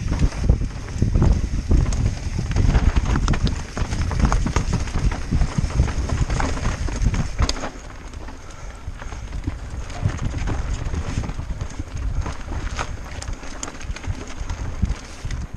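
Mountain bike riding fast down a rocky dirt trail, heard from a helmet camera: wind rushing over the microphone, tyres rumbling over dirt and rock, and the bike's chain and frame rattling with many sharp knocks. It gets quieter about halfway through.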